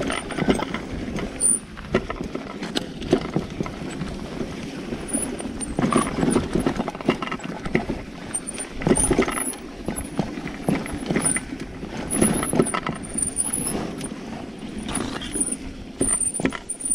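A rigid mountain bike riding fast over a bumpy dirt and root singletrack: steady tyre rumble on dirt and leaves, broken by frequent irregular knocks and rattles from the frame and parts as it hits bumps.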